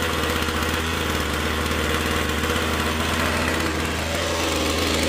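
Ryobi 25 cc two-stroke string trimmer engine idling steadily just after a cold start, left to warm up for a few seconds.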